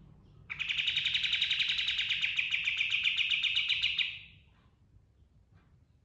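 Kapas tembak, a bulbul, singing one loud, fast rolling trill (ngerol) that starts about half a second in, runs for about three and a half seconds and tails off quickly, followed by faint scattered notes.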